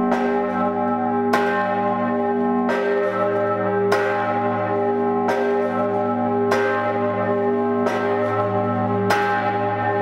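The Seggauer Liesl, Styria's largest historic bell, swung by hand with a rope and ringing deep: seven clapper strokes, a little over a second apart, each over the bell's steady hum.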